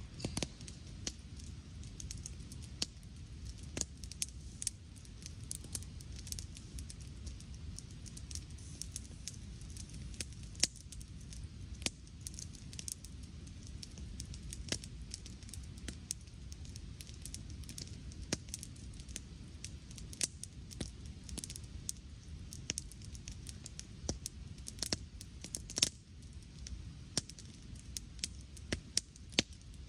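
Log campfire crackling: irregular sharp snaps over a low steady rumble, with one louder snap near the end.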